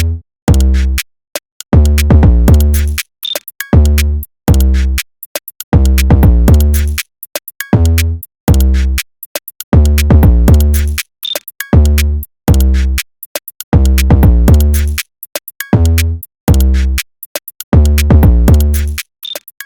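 Hip-hop backing music built on a drum machine, with heavy booming bass notes and sharp hi-hat ticks in a chopped, stop-start rhythm.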